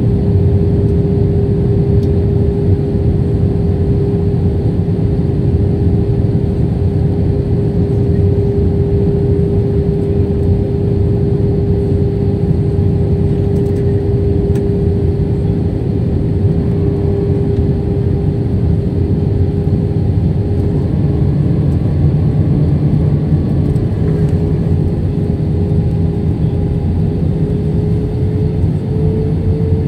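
Jet airliner cabin noise on approach to landing: a steady rush of engine and airflow noise with a constant hum, whose pitch rises slightly near the end.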